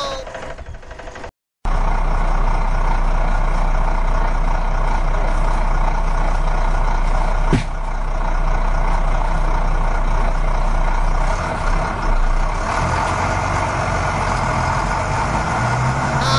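Steady heavy truck-engine running sound, dubbed over toy trucks, with one sharp click about halfway through.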